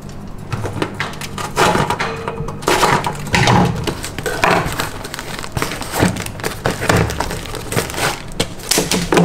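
A small cardboard box being opened by hand and its contents taken out: a run of short cardboard scrapes, rustles and light knocks.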